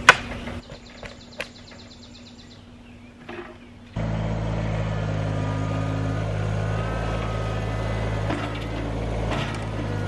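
Kubota compact tractor's engine running steadily, cutting in abruptly about four seconds in. Before that there are a few light scrapes and knocks of a pitchfork working pig-pen bedding.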